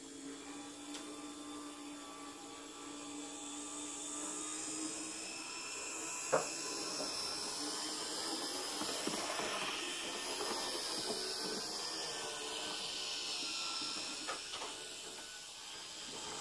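Z-scale model train running on its track: the tiny electric motor whirs and the wheels roll on the rails, growing louder as the train nears and passes close by. There is a sharp click about six seconds in and a couple more near the end.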